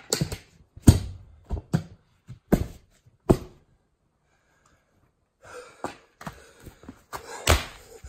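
A run of sharp thuds and knocks from a small lawn tractor wheel and tire being handled and knocked against the ground, about seven in the first three and a half seconds, then fainter knocks and one loud thud near the end. The tire's bead has not seated after a lighter-fluid flame attempt.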